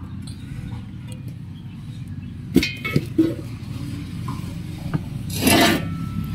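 Metal parts of a satellite dish clinking and knocking as they are handled, a few sharp clicks about two and a half to three seconds in, then a longer scrape as the dish reflector is set down on concrete about five and a half seconds in.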